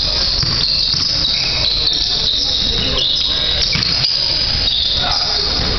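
Basketball sneakers squeaking on a hardwood gym floor during play: a run of short, overlapping high-pitched squeaks, over a steady low rumble of gym noise and scattered thuds.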